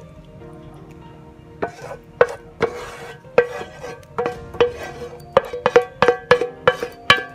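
Wooden spatula knocking and scraping against a metal pan while scraping cream sauce out into a skillet: a run of irregular knocks, each with a short metallic ring, starting about a second and a half in. Soft background music underneath.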